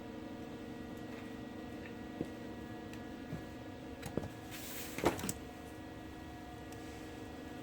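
Steady hum from running shop equipment, with a few light clicks and knocks of gear being handled; the loudest knock comes about five seconds in.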